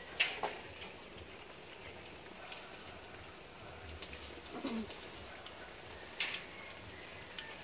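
Battered anchovy fritters frying in oil in a wok over a wood fire: a faint steady sizzle with sharp pops, two of them louder, about a quarter second in and near the end. About halfway through, a bird gives one short falling call.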